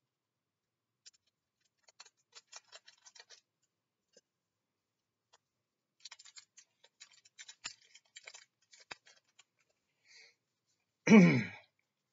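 Foil trading-card booster pack wrapper being torn open and handled, faint crinkling in two stretches of small clicks and crackles. About eleven seconds in comes a short, loud vocal sound from the person opening it.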